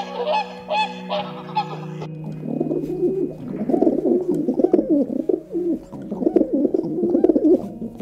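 Birds calling: a few loud, honking calls in the first two seconds, then a long run of lower, wavering cooing calls from several birds overlapping.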